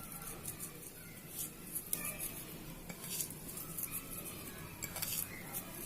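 Faint, scattered clinks and taps of a utensil against dishes, with light rustling, as dried oregano is sprinkled onto bread slices.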